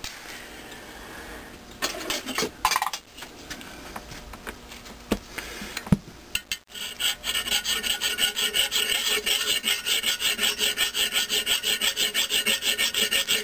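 Hand file rasping on the crankshaft of a 1937 Maytag twin-cylinder two-stroke engine, taking down the high spots that the brass bushing has marked so the shaft will fit. A few light handling clicks come first, then about halfway in the filing starts and keeps going in quick, even strokes, about four a second.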